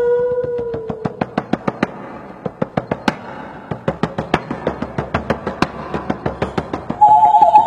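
Quick, dry percussive knocking, several strokes a second in an uneven rhythm, in a live music performance. A held tone fades out about a second in, and a loud sustained tone comes in near the end.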